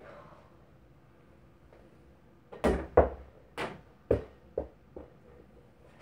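A small ball landing and bouncing about six times, the thuds getting quicker and fainter as it settles.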